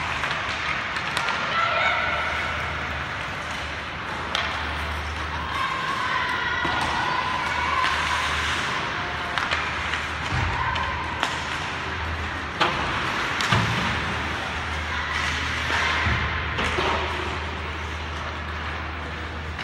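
Ice hockey play echoing in an arena: sticks and puck clacking and thuds against the boards at irregular moments, the sharpest hits a little past halfway, with voices calling out over a steady low hum.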